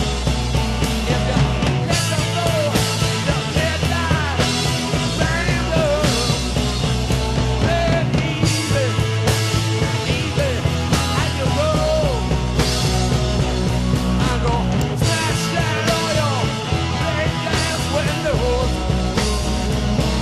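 Rock music playing continuously with a steady bass line.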